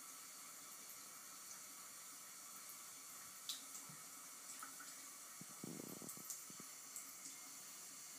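Bathroom sink faucet running faintly and steadily, with scattered soft clicks and a short louder stretch about six seconds in as a cat drinks from the stream.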